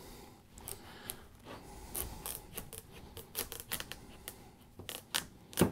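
A Chinese chef's knife being worked through a raw, very firm butternut squash: irregular crisp crackling and scraping clicks as the blade cuts the hard flesh, with a louder snap near the end.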